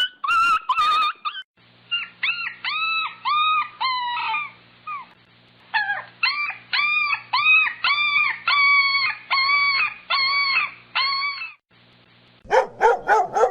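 A dog giving a series of short, high-pitched yelping whines, each note rising and then falling, in two runs of about two calls a second. Near the end a quick run of lower barks begins.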